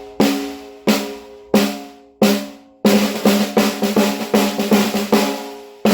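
Ludwig Rocker Elite piccolo snare drum, unmuffled, played with sticks as a sound test after tuning: four slow single hits, each with a bright snare rattle and a long pitched ring, then from about three seconds in a quicker run of strokes. The drum rings out freely because it has no internal muffling and no moon gel on it.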